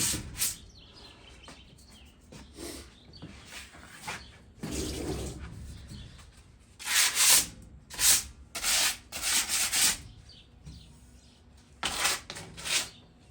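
Sandpaper scraped by hand over a rusty metal patio chair frame, taking off surface rust in short strokes: a few early on, a quick run of about five strokes midway, and three more near the end, with softer rubbing between them.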